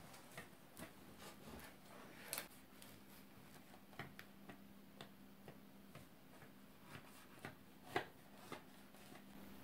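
Knife cutting into a stack of thin baked Ossetian pies: quiet, irregular clicks and taps as the blade goes through the crust and meets the board, loudest about two seconds in and again near eight seconds, over a faint steady hum.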